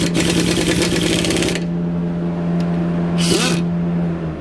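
Impact wrench running on a brake caliper bolt, hammering it tight with a steady motor hum and a rapid rattle. It stops just before the end.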